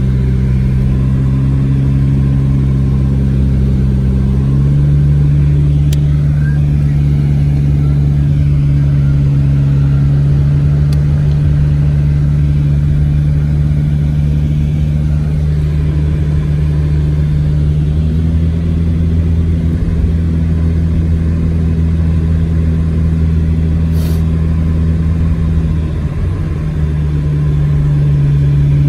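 Car engine and road noise heard from inside the cabin while driving, a steady low drone. Its pitch steps up about four seconds in and shifts again twice later as the engine speed changes.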